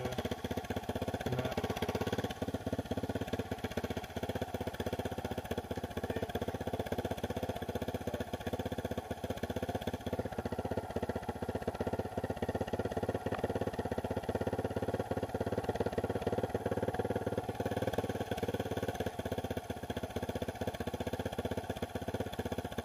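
Dirt bike engine idling steadily, close to the microphone.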